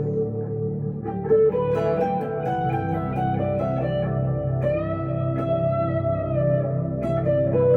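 Electric guitar, a 1962 Gibson Les Paul Custom through a Two-Rock Emerald Pro tube amp with delay and reverb, playing a slow single-note melody with a long held note in the middle.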